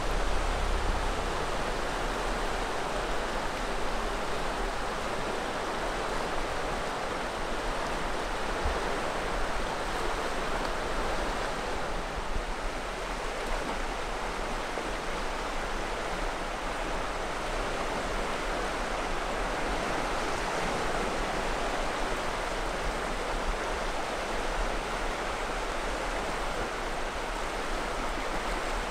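River water flowing steadily, an even rushing with a low rumble underneath.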